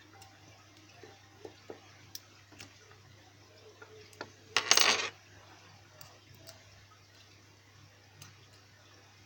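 Small metal clicks and ticks of picking tools working in a padlock, with a brief loud metallic clatter about four and a half seconds in.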